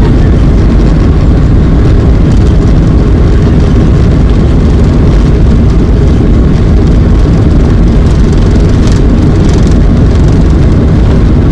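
Steady, loud roar of a Boeing 737-800's CFM56 jet engines and airflow, heard inside the passenger cabin, deep and even throughout.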